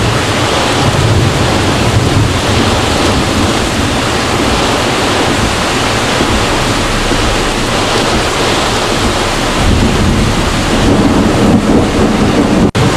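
Typhoon wind and heavy rain: a loud, steady rushing noise with a low rumble underneath, which cuts off suddenly near the end.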